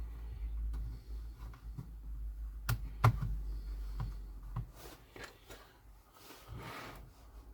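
Sharp plastic clicks and light scraping as a guitar pick is worked into the seam of the Acer Aspire E5-573's plastic bottom case, the two loudest clicks about three seconds in, with a brief rustle near the end. A low hum sits underneath and fades out about two-thirds of the way through.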